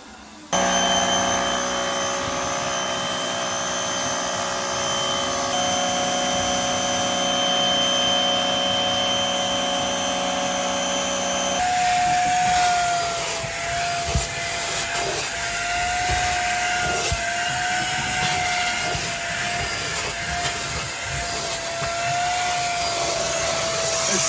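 Vacuum cleaner motor running with a steady whine, in several cut-together stretches; in the last half the whine wavers in pitch as the airflow changes.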